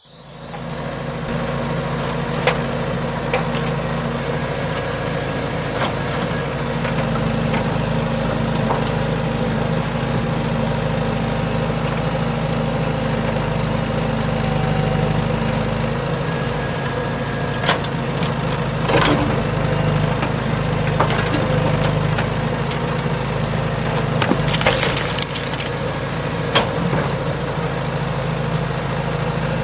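A small motor running steadily, building up over the first second, with a few sharp clicks and cracks through it.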